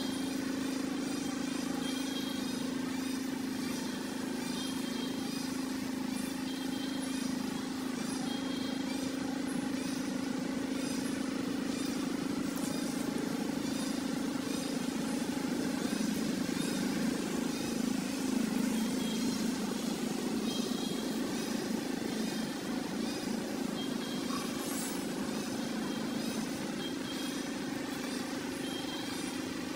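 Steady low motor hum that runs unbroken, with faint small high sounds over it.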